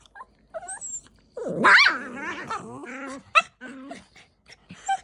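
Small dogs squabbling: a few short yips, then a long, loud call that wavers up and down in pitch about a second and a half in, followed by short sharp yaps.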